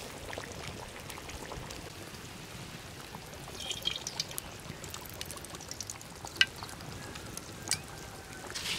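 A pot of curry simmering with a steady soft hiss. About four seconds in, mustard oil is poured from a bottle into an empty wok, a spell of short trickling bursts. Two sharp clicks follow a little later.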